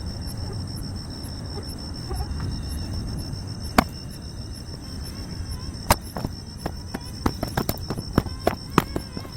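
Night insects, crickets or similar, trilling steadily at a high pitch, with a low rumbling background. From about four seconds in, a series of sharp clicks and knocks joins them and comes faster near the end.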